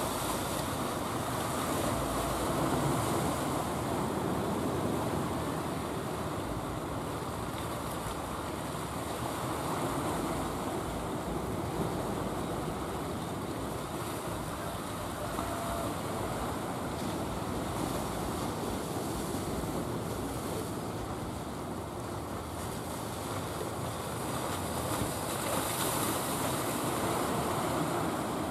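Sea surf washing and breaking: a steady rushing wash that swells and eases every few seconds.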